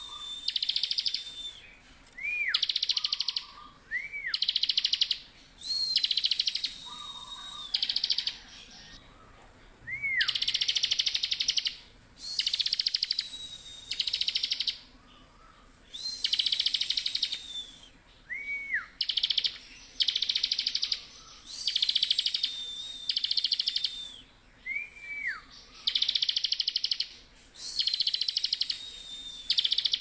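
Bar-winged prinia (ciblek) in full song: repeated loud bursts of very rapid, high trilled notes, each about a second long, every couple of seconds. Between them come thin high whistles and short rising-then-falling chirps.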